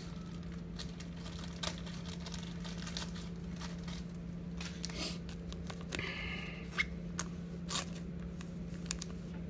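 Scattered rustling and crinkling of plastic and foil as trading cards are handled and slipped into clear plastic sleeves, with a denser crinkle about six seconds in. A steady low hum runs underneath.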